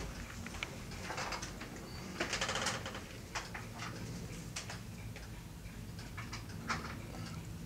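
Oriental-Siamese cross cat purring, a faint low steady rumble, with scattered light clicks and a brief louder higher-pitched sound a little over two seconds in.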